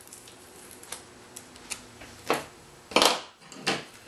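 Tyvek sheet and adhesive-tape backing paper rustling and crinkling as they are handled, with a few light clicks, then three short swishes, the middle one loudest.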